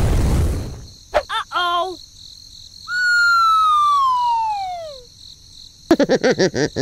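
A loud rushing noise dies away in the first second, then a few short chirps, then a long whistle-like tone falling steadily in pitch over about two seconds, and near the end a fast run of about eight warbling pulses.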